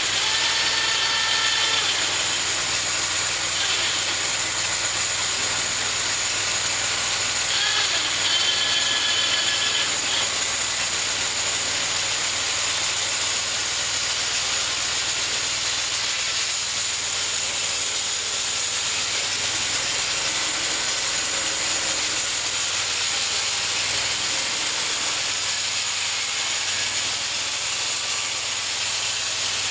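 Homemade bandsaw mill running, its blade sawing through a cherry log: a steady hissing noise over the drive engine, with a brief high whine near the start and again about eight seconds in.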